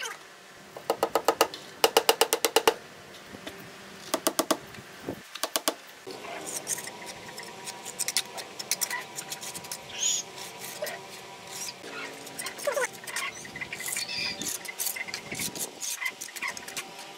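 Three short bursts of rapid sharp taps, then a steel trowel scraping and pressing mortar into the joints between red bricks, with small clicks of the blade on brick.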